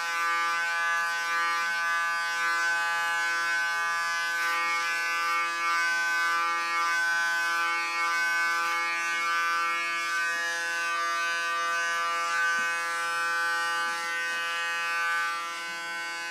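Electric hair clipper running with a steady buzz as it is passed over the scalp, cutting the hair very short.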